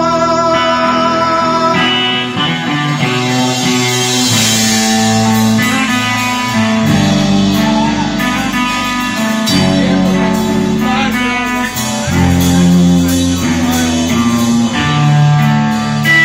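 Live band playing an instrumental passage: guitar lead over bass guitar and drums with cymbal hits, a held note ringing through the first couple of seconds.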